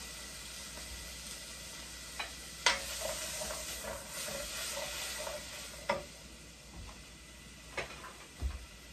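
Chopped onions, scallion and sweet pepper sizzling in hot butter in a pot while a spatula stirs and scrapes through them. A few sharp knocks sound over it, the loudest about three seconds in.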